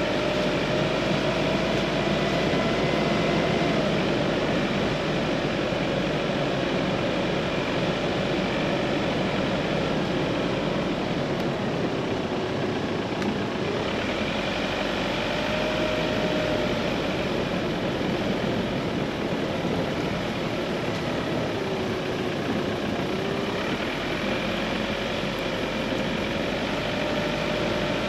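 A 4x4 driving slowly along a narrow, bumpy lane: steady engine and tyre noise, with a whine that drifts up and down in pitch.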